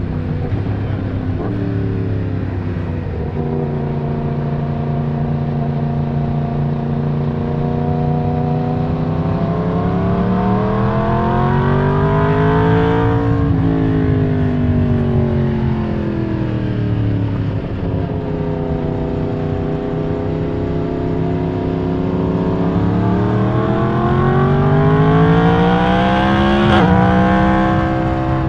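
Yamaha MT-10's crossplane inline-four (CP4) engine pulling through its mid range, heard from the rider's seat. The revs hold steady, climb to a peak about halfway through and fall back, then climb again and dip suddenly with a click near the end.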